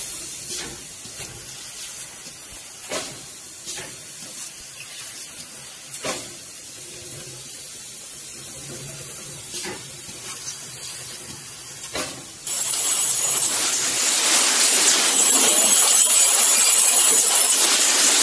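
Bottle label de-sleeving machine for 5-gallon water bottles running: a low steady noise with a sharp knock every second or so, then, about twelve seconds in, a much louder steady hiss starts and keeps on.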